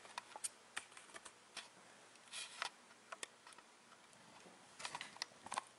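Faint handling noise: scattered small clicks and taps, with a couple of brief rustles about two and a half and five seconds in.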